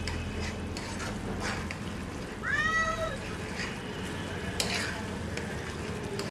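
A cat meows once, a short call that rises then falls, about two and a half seconds in. Under it a spatula scrapes and taps in a frying pan as sauce is stirred.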